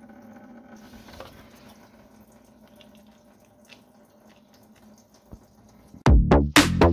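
Coolant dripping and trickling from the opened drain plug of a Toyota Yaris radiator, faint, over a low steady hum. About six seconds in, loud electronic music with a heavy beat cuts in.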